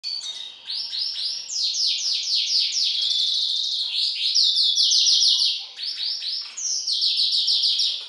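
A Magellanic siskin hybrid (mule) singing a fast, twittering song of rapidly repeated down-sweeping notes in quick runs, with a brief break just before six seconds.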